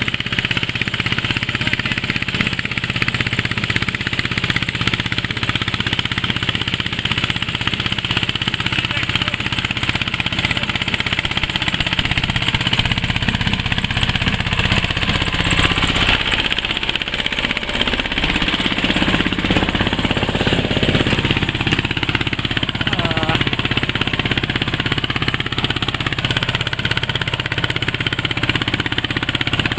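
Başak 17 small tractor's engine running steadily as it pulls a loaded trailer over a rocky track. Its sound changes around the middle as the tractor comes up close.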